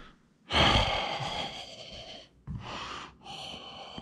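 A man breathing out hard, three breathy gasps close to the microphone, the first the loudest and longest.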